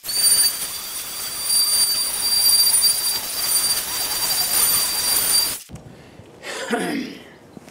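Electric palm sander running against a wooden board, a steady grinding hiss with a high whine over it, cutting off suddenly about five and a half seconds in.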